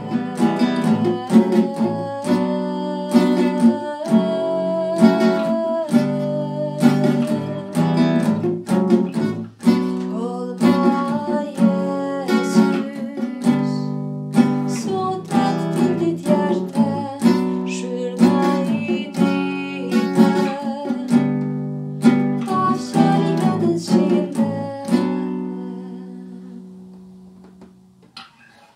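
Nylon-string classical guitar picking the song's chords (B minor, F-sharp, G, E minor), with a woman's voice singing over part of it. Near the end a last chord rings out and fades away.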